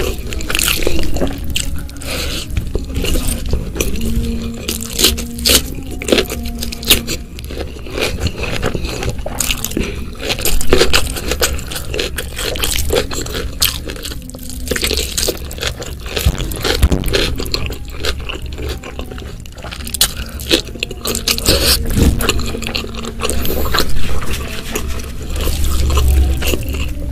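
Close-miked eating sounds: wet chewing and lip smacking of spicy rice with stuffed squid, mixed with fingers squishing and scraping the food together on a banana leaf, in many irregular sharp clicks.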